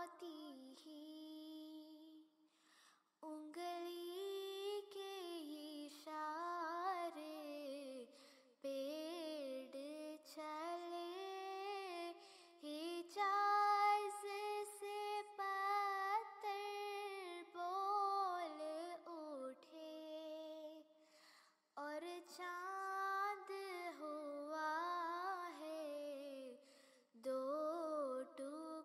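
Background song: a single high female voice sings a slow, ornamented melody with no audible accompaniment, in phrases broken by short pauses.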